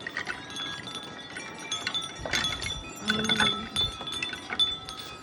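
Metal wind chime ringing in gusty wind: many clear, overlapping notes struck again and again, some louder than others, with a faint rush of wind underneath.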